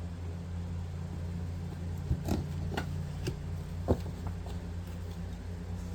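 Steady low hum with a few short, light taps and clicks between about two and four seconds in.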